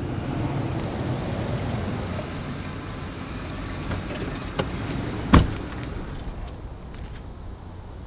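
An SUV rolls slowly into a parking space, its engine and tyres making a low, steady rumble that fades after about four seconds. About five seconds in comes a single sharp thump of a car door shutting.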